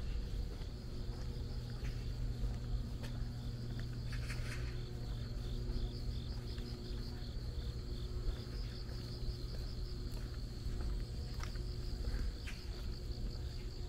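Insects chirping in a high, even pulse, about four chirps a second, over a steady low hum, with a few light clicks.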